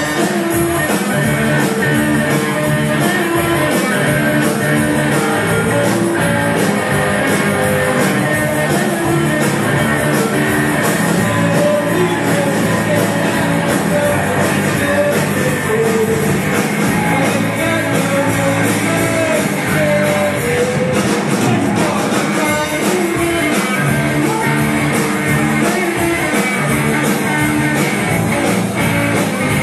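Rock band playing live, with electric guitars over a steady drum beat.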